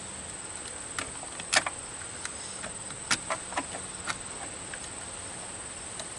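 Steady high-pitched insect chirring, like crickets, with a scatter of short sharp clicks and taps between about one and four seconds in.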